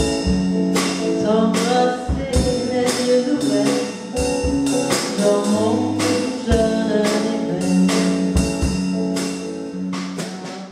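A small band playing a song: a woman singing over electric guitar, with a drum kit keeping a steady beat of drum and cymbal hits.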